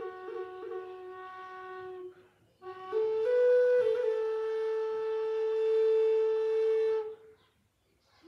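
High Spirits wooden Native American flute playing a slow melody: a low note with quick flicks up to a higher note, a short break, then a note that steps up and is held for about three seconds. It stops about a second before the end, and a new low note begins just at the end.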